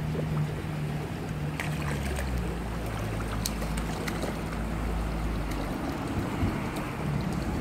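Steady rush of shallow river water with wind buffeting the microphone, and a few brief splashes from a hooked trout thrashing at the surface.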